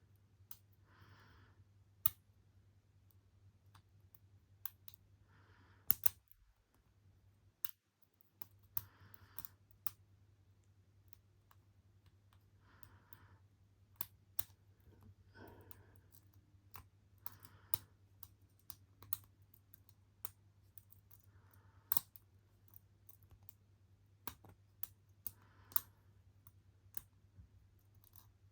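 Lock pick and tension wrench working inside a 58mm brass padlock's keyway, making irregular sharp metallic clicks every second or two as the pins are picked.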